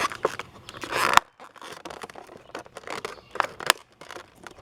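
Toy packaging being torn open by hand: a rasping tear for about the first second, ending in a sharp crack, then scattered crackles and clicks as the pieces are worked loose.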